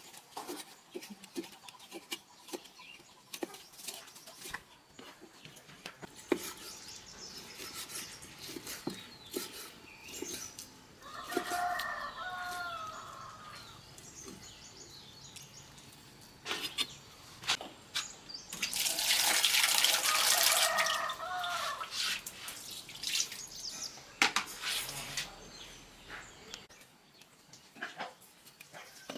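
Chickens with a rooster crowing twice, once about eleven seconds in and again, louder, about nineteen seconds in. Scattered light taps and clicks run between the crows.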